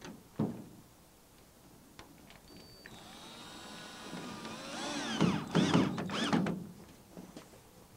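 Cordless drill driving a 2.5-inch screw through a vent panel into the frame: a knock near the start, then the motor whine rising about three seconds in and wavering in pitch under load with a few sharp clacks as the screw drives home, stopping shortly before the end.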